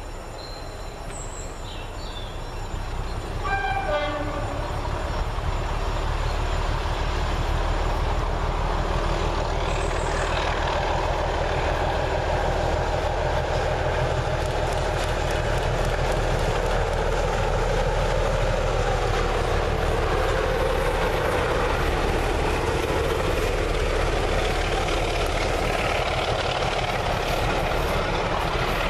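Class 24 diesel locomotive gives a short horn blast about three to four seconds in, then its engine is heard running under load. The sound grows louder as it approaches and holds steady as it hauls its coaches past.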